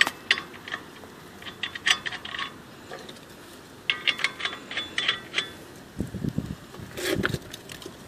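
Steel lug nuts spun by hand onto wheel studs: two runs of quick metallic clicking as they turn down the threads. Duller handling knocks follow near the end.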